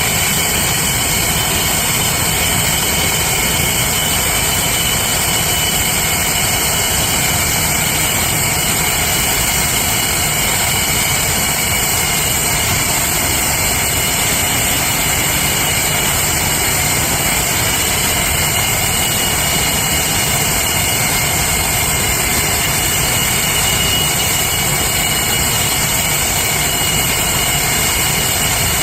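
An English Electric Lightning's Rolls-Royce Avon turbojets running steadily at low power, a constant rushing noise with a high whine held throughout that shifts slightly in pitch partway through.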